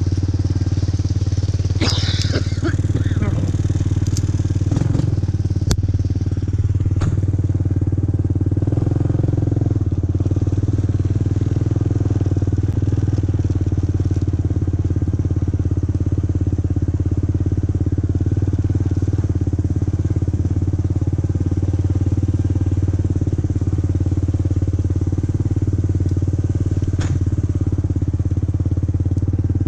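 ATV (four-wheeler) engine running at a steady, unchanging pitch, with a few brief clicks and knocks a few seconds in and once near the end.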